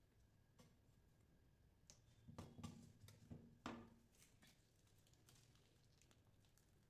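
Near silence broken by faint handling noises: a few soft knocks and rustles between about two and four seconds in, then light ticks, as gloved hands work around the cup of ice cream rolls and pick up the whipped-cream piping bag.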